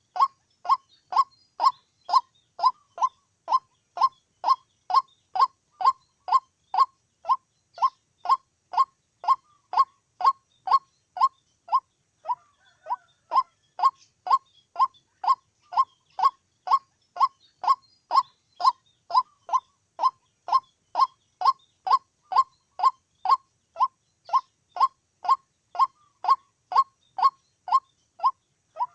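White-breasted waterhen calling: one short note, dropping slightly in pitch, repeated over and over at an even pace of two to three a second, with a brief pause about twelve seconds in.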